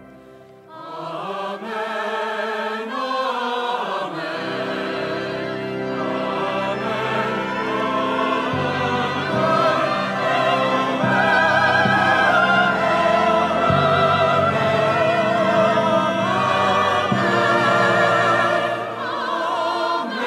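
A hymn sung with vibrato by a choir over sustained instrumental accompaniment, the singing coming in again after a brief pause just under a second in.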